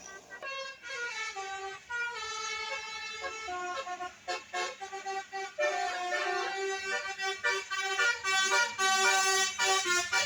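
Indonesian bus telolet horn playing a multi-note tune, its tones stepping up and down from note to note, starting about half a second in and growing louder toward the end.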